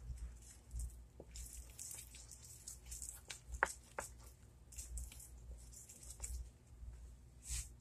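Wooden spoon stirring wet dumpling dough in a glass bowl: faint squishing and scraping, with a few light clicks of the spoon against the glass.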